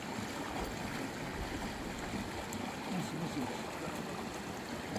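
Steady rushing of a wide, fast-flowing river.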